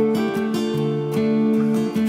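Background music: acoustic guitar picking a slow, steady pattern of notes.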